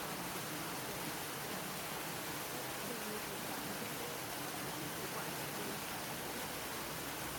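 Steady, even rushing noise with no changes, with faint voices in the background.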